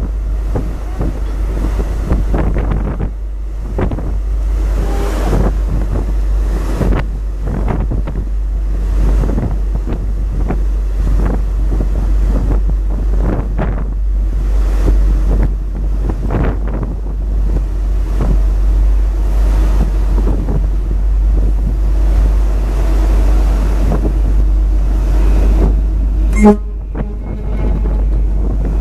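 Wind buffeting the microphone on the deck of the ferry Blue Star Ithaki, over a steady low rumble from the ship. About 26 seconds in comes a single short, loud knock.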